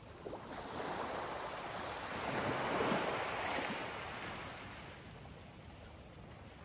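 A small wave washing up onto a sandy beach and drawing back: a hiss that swells for about three seconds and then fades away.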